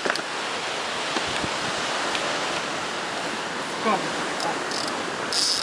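Steady wash of sea surf with wind on the microphone, a continuous rushing noise.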